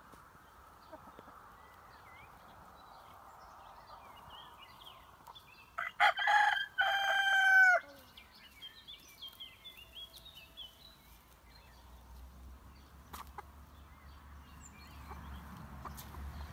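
A rooster crowing once, about six seconds in: a crow of about two seconds, ending in a long held note that drops at the very end. Faint chirps come before and after it.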